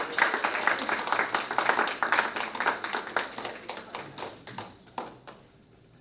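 Audience applauding, the clapping thinning out and dying away over about five seconds, with a few last claps near the end.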